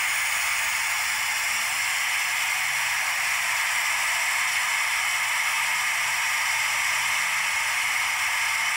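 Compressed air blasting out of a water-well borehole at a small drilling rig, blowing out spray and rock cuttings: a steady hiss with no breaks.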